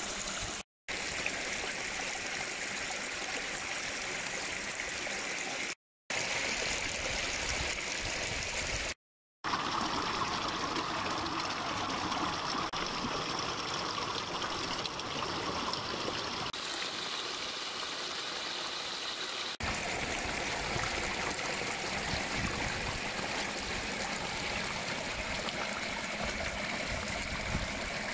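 Muddy floodwater from rain running through a wadi and spilling over a low rock ledge: a steady rush and splash of water, broken by a few brief silent gaps.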